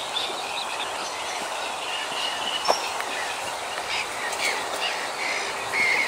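Tall grass and reeds rustling and brushing as someone walks through them, with a few footstep clicks and short bird chirps, more of the chirps near the end.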